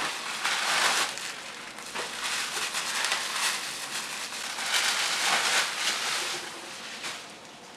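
Bubble wrap and a plastic bag crinkling and rustling as they are handled and pulled apart to unwrap a packed item, in irregular crackly bursts.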